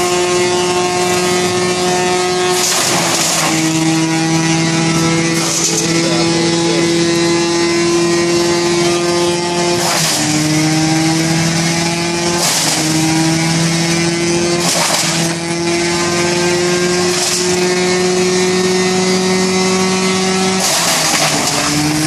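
1974 Wayne wood chipper running at speed with a steady hum, broken every two or three seconds by short crunching bursts as branches are fed in and chipped. At the bigger bites the pitch sags as the machine takes the load, then climbs slowly back.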